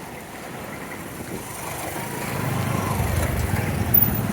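A passing motor vehicle's engine, rising from a faint background hum to a louder low rumble about halfway through as it draws near.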